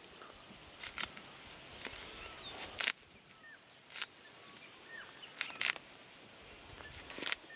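Leaves rustling and twigs snapping as leaves are picked by hand from a tofu-tree branch, in short sharp crackles every second or so. A few faint bird chirps.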